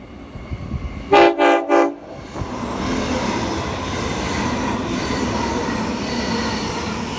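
Queensland Rail train's horn sounding three short blasts in quick succession about a second in, followed by the steady rumble of the train running by.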